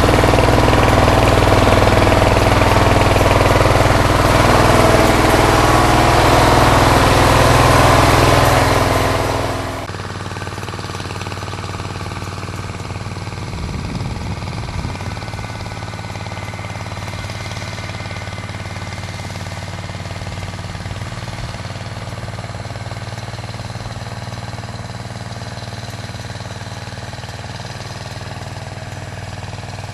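Allis-Chalmers 716 garden tractor engine running steadily; about ten seconds in the sound drops sharply and carries on at a lower, steady level.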